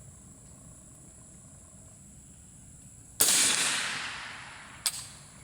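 One suppressed .300 Blackout rifle shot with a 220-grain subsonic Fiocchi round, about three seconds in: a sudden report that trails off over about a second and a half, followed by a single sharp click near the end.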